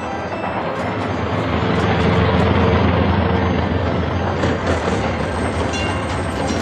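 An added sound effect of a motor vehicle passing: a low rumble that swells to its loudest about two to three seconds in and then eases off, over faint background music.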